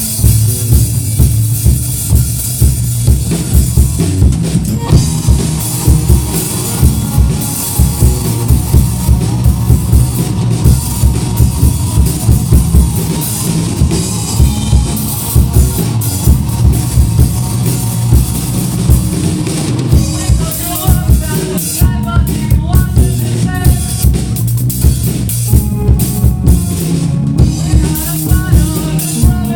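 Rock music played by a band, a drum kit keeping a steady, driving beat under bass and guitars.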